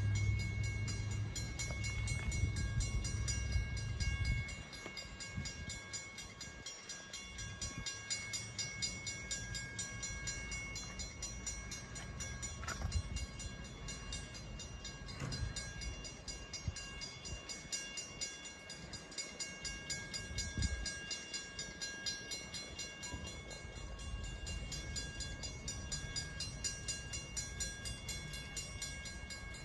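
Puffing Billy NA-class narrow-gauge steam locomotive standing in the station yard: a low rumble that drops about four seconds in, over a steady hiss and thin high tones, with a few scattered knocks.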